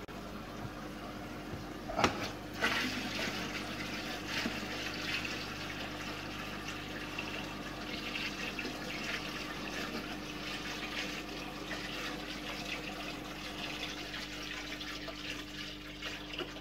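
Water poured gently from a flexible plastic tub into an aquarium, a steady stream splashing into the tank water as it is topped up. A single knock about two seconds in, just before the pour starts.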